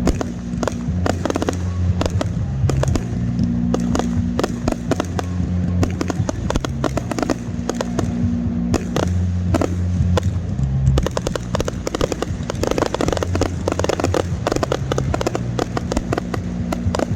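Fireworks finale: a rapid, continuous run of sharp bangs and crackling, densest about two-thirds of the way through, over background music with a held bass line.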